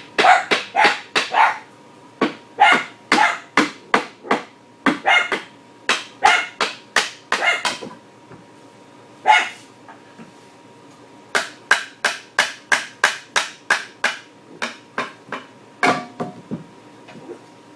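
A dog barking in rapid runs of short, sharp barks, about three or four a second, with a few brief pauses.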